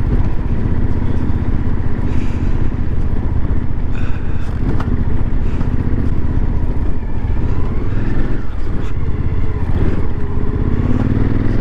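Suzuki V-Strom's V-twin engine running steadily as the motorcycle rides along a dirt road, with a few slight rises and falls in pitch about two-thirds of the way through.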